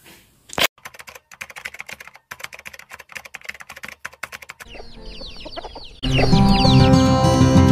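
A rapid, irregular run of clicks, then quick falling bird chirps over a steady outdoor hiss. About six seconds in, loud guitar-led music comes in, with the chirping still heard under it.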